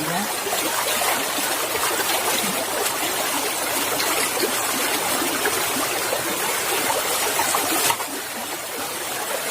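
Flowing water running steadily, like a small stream or runoff channel, with a short dip in level near the end.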